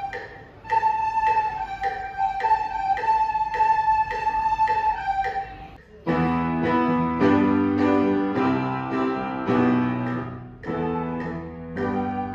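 A group of children playing recorders in unison, holding slow notes one at a time against metronome ticks about twice a second. About six seconds in, this gives way to recorders playing along with a piano accompaniment.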